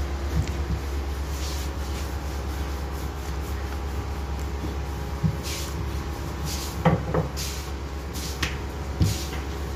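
A few short knocks as a wooden rolling pin and roti dough are handled on a marble slab, the loudest pair about seven seconds in, over a steady low hum.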